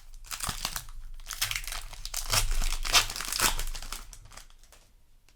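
Foil Magic: The Gathering booster pack wrapper being handled and crinkled, a dense crackling rustle with a few tearing sounds, dying away near the end.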